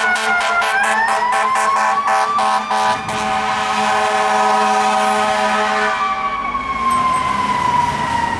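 Fire engine air horns blasting over a wailing siren: short rapid blasts for about three seconds, then one long held blast that stops about six seconds in, leaving the siren falling in pitch.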